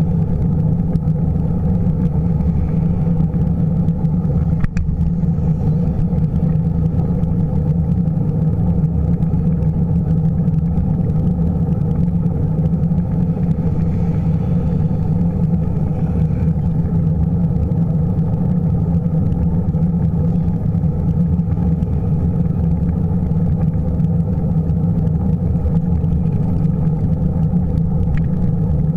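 Steady low rumble of wind and road vibration picked up by a camera riding on a moving bicycle, with a single click about five seconds in.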